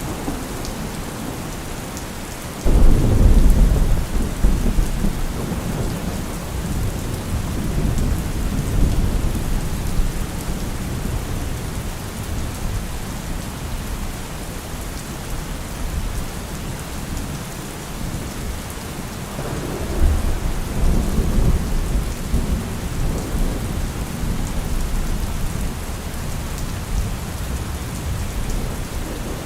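Steady rain falling, with rolling thunder. A loud rumble breaks in suddenly about three seconds in and dies away over several seconds, and a second, weaker rumble comes about two-thirds of the way through.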